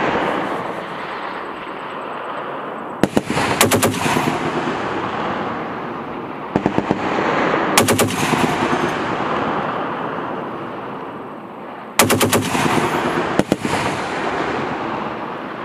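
M2 Browning .50 caliber heavy machine gun firing short bursts of a few rounds each: one just before the start, then about 3, 7 and 12 seconds in. A loud continuous rumble of echo fills the gaps between bursts.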